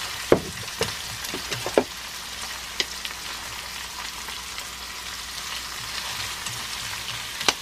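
Shrimp and vegetables sizzling steadily in olive oil in a nonstick frying pan over low heat. They are stirred with wooden chopsticks, which knock against the pan several times in the first two seconds and once more near the end.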